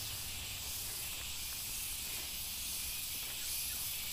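Cicadas (riang-riang) droning in a steady, high-pitched chorus.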